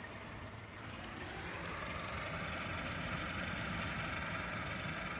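Small wind turbine whirring in strong, gusting wind; the whir and wind noise build up about a second in and hold steady.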